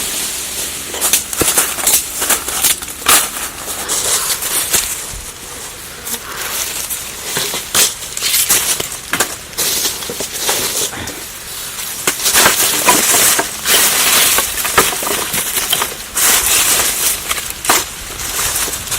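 Dry leaves and twigs crackling and rustling in irregular bursts of sharp snaps, busiest and loudest in the second half.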